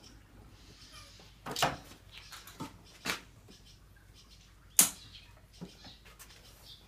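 A few separate sharp clicks and knocks from working the controls of a cold, not-yet-running Husqvarna SM570R: the kick-start lever being eased round to find top dead centre, and the carburettor choke being switched off by hand. The loudest click comes about five seconds in.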